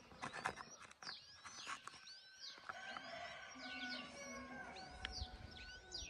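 Faint chirps and short whistled calls of birds in the background, several overlapping. Soft rustles and taps come from a cloth being tucked into a plastic basin.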